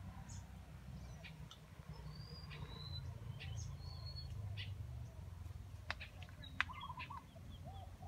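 Wild birds calling: scattered short, high chirps and whistles, then near the end a quick run of about five low coos from a dove. Two sharp clicks come just before the coos, the second the loudest sound here, and a low rumble runs underneath.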